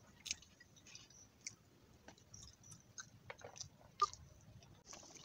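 Faint, scattered soft clicks and squishes of fingers mixing cooked rice on a plate, with one sharper click about four seconds in.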